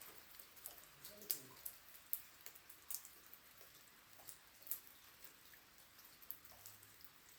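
Faint, irregular ticks of raindrops hitting a nearby surface, a few each second, over a soft hiss of rain.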